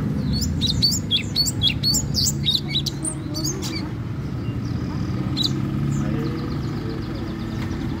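Orange-bellied leafbird (cungkok) singing: a rapid string of varied high chirps and whistles for the first three and a half seconds, a single note about five and a half seconds in, then a faint fast trill near the end. A steady low hum lies underneath.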